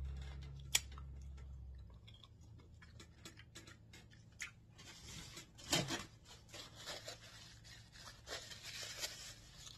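A low steady hum that stops about two seconds in, then scattered small clicks and smacks. Over the second half a paper napkin crinkles and rustles as hands are wiped on it, with one louder crackle.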